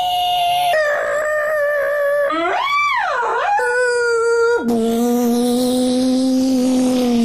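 People imitating a police siren with their voices: held wailing tones, one after another at different pitches, with one rising-and-falling swoop near the middle.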